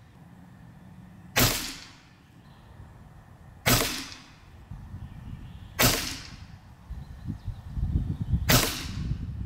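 Hatsan Factor RC Sniper Long regulated PCP air rifle, tuned to about 920–930 fps with .22 25.4-grain pellets, firing four shots two to three seconds apart. Each shot is a sharp crack with a short fading tail.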